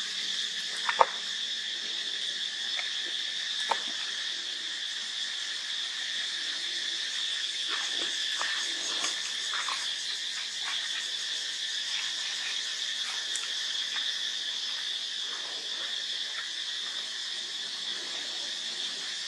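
Steady, high-pitched chorus of insects droning without a break. A sharp click comes about a second in, another just before four seconds, and a few short falling chirps come in the middle.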